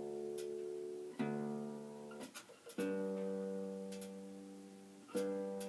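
Single notes plucked on a Fender Kingman acoustic bass, three in all, each left to ring and fade slowly, with an earlier note still sounding at the start.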